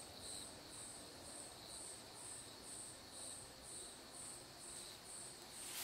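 A cricket chirping faintly and steadily, a short high chirp about twice a second.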